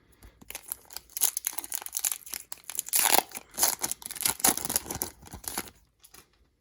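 A foil Pokémon TCG booster pack wrapper being torn open and crinkled in the hands: a dense run of crackling and rustling lasting about five seconds.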